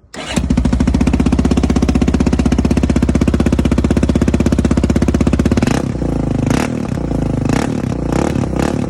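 Yamaha Raptor 660R's single-cylinder four-stroke engine through a Lexx slip-on exhaust with its insert taken out, running loud with an even, steady pulse after coming in abruptly. A little before six seconds the beat changes and the throttle is blipped about three times near the end.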